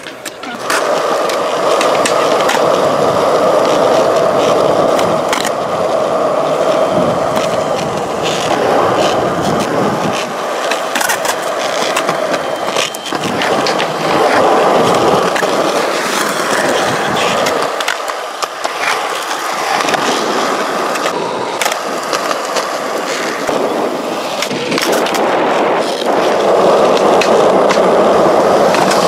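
Skateboard wheels rolling loudly over rough, cracked concrete, a steady grinding rumble that swells and eases as riders push and coast, with a few sharp clacks of boards hitting the ground.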